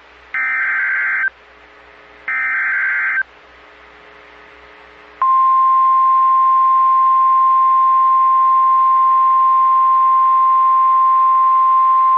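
NOAA Weather Radio alert: two SAME digital header bursts, each about a second long with a second's gap between them. About five seconds in, the steady single-pitch 1050 Hz warning alarm tone starts and holds. Together they signal that a new warning, here a severe thunderstorm warning, is about to be broadcast.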